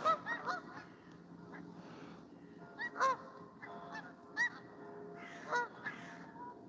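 A flock of geese honking: repeated short honks, several overlapping, with the loudest about three seconds in.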